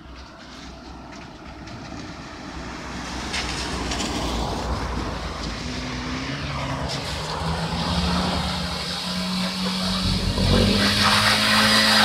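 Tofaş Doğan L car engine revving with the hiss of tyres on a wet road, growing steadily louder; the engine note climbs in pitch in the second half.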